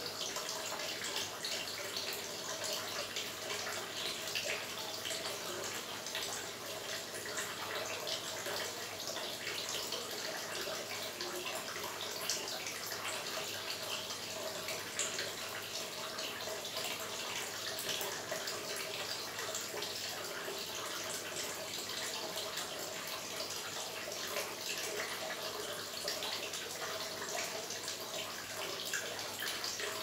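Small garden water feature: water spilling from clay pots into a shallow pool, a steady trickle and splash dotted with many small drips.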